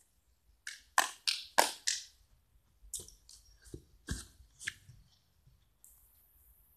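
A run of short, sharp crackles and knocks close to the microphone, four or five in quick succession about a second in and several more a couple of seconds later, with a brief faint hiss near the end.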